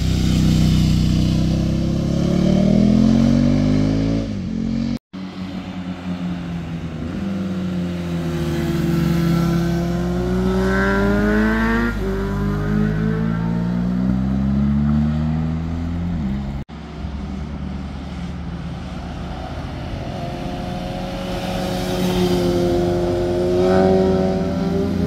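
Motorcycles riding through a hairpin bend one after another, engines revving up and dropping in pitch as they slow into and accelerate out of the curve, with two abrupt breaks in the sound.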